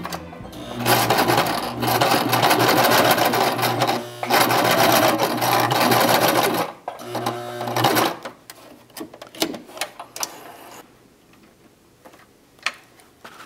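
Electric sewing machine stitching a seam through folded fabric: it runs fast in two long bursts of about three seconds each and a short one about seven seconds in, then stops, leaving scattered small clicks.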